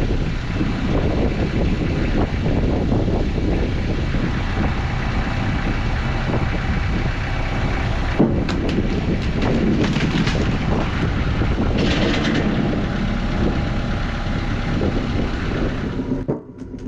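Tractor engine running steadily, with a few short clanks partway through.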